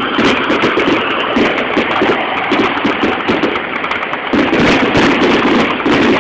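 Fireworks finale: a dense, continuous barrage of bangs and crackling from many shells bursting at once, growing louder about four seconds in.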